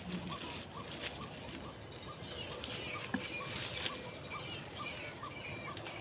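Forest ambience while walking through undergrowth: leaves rustling and footsteps in leaf litter. An animal calls in a steady series of short notes, about three a second, and a thin high steady whine stops about two-thirds of the way through.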